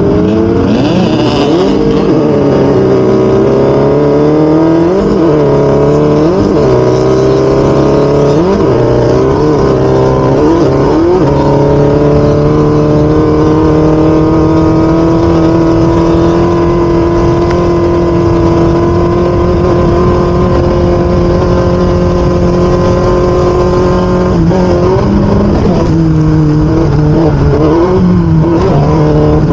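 Off-road race vehicle's engine under hard throttle: the pitch climbs and drops again and again through the first ten seconds or so, holds nearly steady for about twelve seconds, then rises and falls again near the end.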